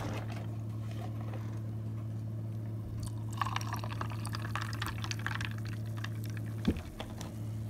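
Almond milk poured from a carton onto ice and tea in a tumbler, the splashing pour starting about three seconds in and stopping with a knock near the end. A steady low hum runs underneath.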